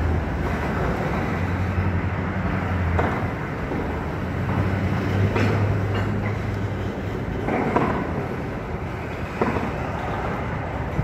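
Intermodal freight train's double-stack well cars rolling past, steel wheels on the rails giving a steady low rumble with several sharp clacks a couple of seconds apart.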